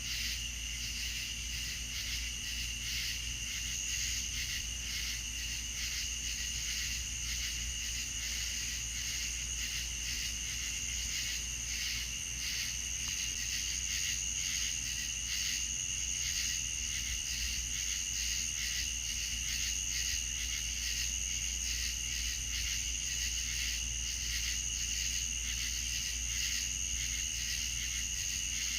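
Crickets chirping in a steady, continuous night chorus of rapid high-pitched pulses, with a steady low hum underneath.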